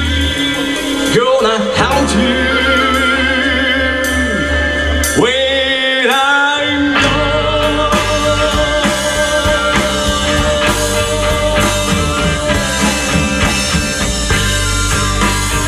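Live amplified rock band playing: electric guitars, bass guitar and drum kit, with a voice singing. Two swooping glides in pitch come in the first half, and the band fills out into a denser, fuller sound about halfway through.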